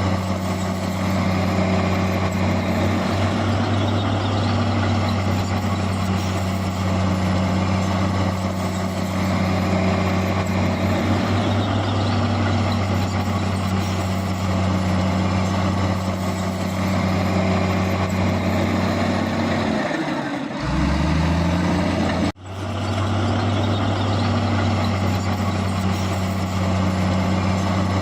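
Heavy diesel earthmoving machinery, a bulldozer and dump trucks, running steadily under a constant low engine drone. About three quarters of the way through, the low tone dips and rises, then the sound cuts out for an instant and resumes.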